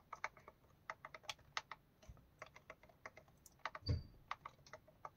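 Keys on a Brother PT-H110 label maker's QWERTY keypad pressed one at a time as text is typed in: faint, irregular soft clicks, with a slightly louder knock about four seconds in.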